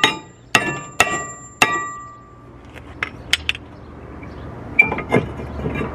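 Hammer blows on a car's rear brake rotor at the hub: four sharp metallic strikes in the first two seconds, each ringing briefly, followed by a few lighter clinks and knocks.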